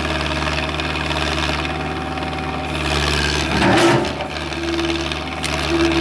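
Excavator's diesel engine running steadily under load while it presses on a log being split, with a short loud crunch about four seconds in and a brief hydraulic whine twice near the end.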